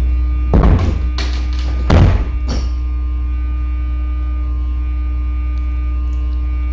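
Steady low buzzing hum from a sewer pump-out truck's pump, with two loud thumps about half a second and two seconds in and a few lighter knocks between them.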